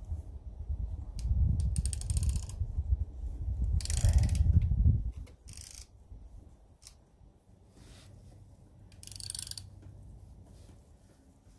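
A steel bolt being wrenched into an untapped mounting hole in a Briggs & Stratton engine base, ratcheting and scraping metal on metal as it cuts its own thread: the hole is not threaded, and the bolt seems to want to eat the metal. Two loud spells of scraping come in the first half, then a short one later.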